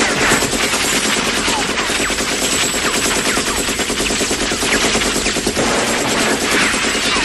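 Sustained automatic fire from an M60 belt-fed machine gun, a rapid unbroken stream of shots, with spent brass cases clinking onto a concrete floor.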